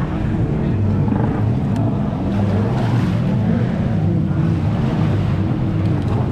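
Jet ski engines running continuously, their pitch wavering up and down as they rev.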